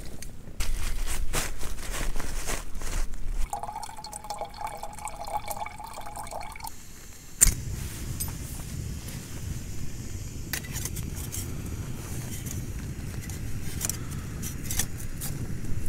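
Jetboil gas canister stove being lit: gas hissing with a wavering whistle from the opened valve for about three seconds, then a sharp pop as it ignites, after which the burner runs with a steady low rushing sound. Small clicks come from the pot being handled and set on the burner.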